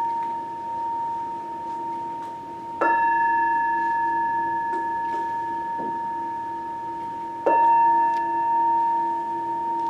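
Singing bowl struck twice, about three seconds in and again about seven and a half seconds in. Each strike gives a clear, sustained ring that slowly fades, and the ring of an earlier strike carries on underneath at the start.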